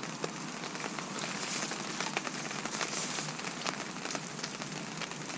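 Heavy rain falling steadily, with many individual drops ticking close by.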